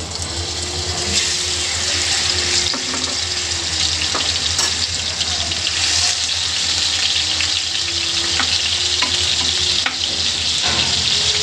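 Marinated chicken pieces sizzling steadily as they fry in hot mustard oil in a nonstick pan. A wooden spatula turning the pieces gives a few brief taps and scrapes.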